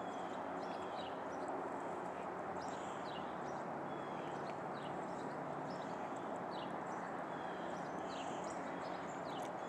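Small songbirds giving many short, sharp chip notes, scattered irregularly, over a steady low background rush.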